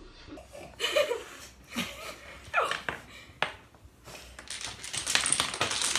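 Dominoes clicking and clattering as they are picked from a loose pile and stood up in a line, the clicks coming thick and fast in the last second or two. Giggling and laughter come in the first half.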